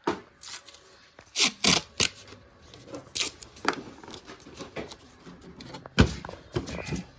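Paper tape being pulled, torn and pressed onto a wooden wall clock's glass door: crackly tearing and rustling with scattered taps, and one sharp knock about six seconds in.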